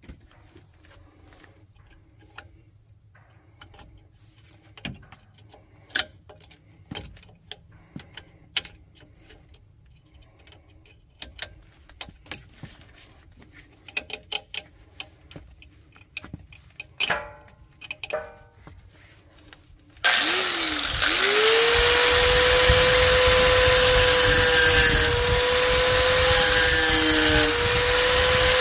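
Scattered light clicks and knocks. About twenty seconds in, an angle grinder starts with a rising whine and then runs loud and steady, its pitch dipping briefly now and then under load as it cuts.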